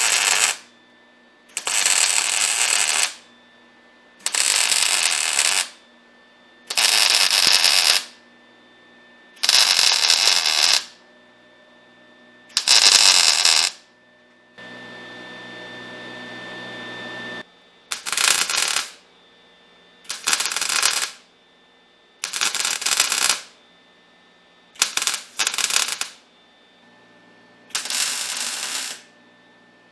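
Wire-feed welder laying short stitch welds on thick steel: about a dozen bursts of crackling arc, each a second or so long, with short pauses between them. In the middle the bursts give way to a quieter steady hum for about three seconds.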